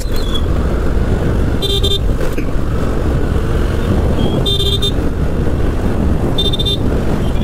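Steady motorcycle riding noise, wind buffeting the mounted microphone over the engine and tyres. Three short horn beeps sound over it, about two seconds apart.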